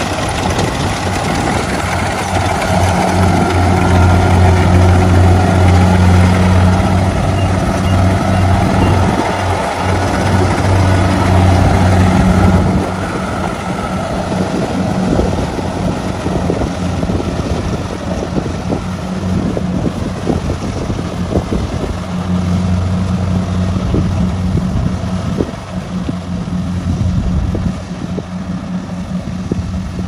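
Tracked rice combine harvester running while it cuts and threshes rice, its engine giving a steady hum that is loudest over the first half and drops a step at about thirteen seconds.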